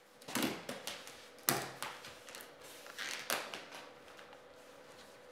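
Rustling and crinkling of a foil-covered roll of laminate underlay with built-in vapour barrier as it is handled, with a few sharp knocks and crackles: about half a second in, at a second and a half, and again around three seconds.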